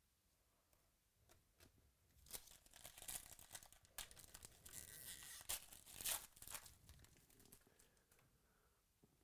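Foil wrapper of a trading-card pack being torn open and crinkled. It starts about two seconds in and dies away by about seven and a half seconds.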